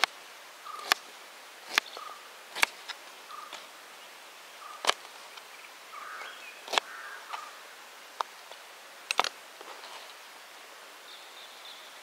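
Kitchen knife chopping pineapple on a tray: sharp knocks of the blade coming down on the tray, about eight of them at uneven gaps of one to two seconds, stopping near the end.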